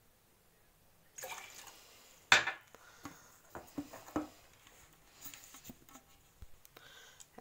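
Coffee cups and a metal coffee tin handled on a granite countertop: a single sharp clink a little over two seconds in, then a run of light taps and clicks.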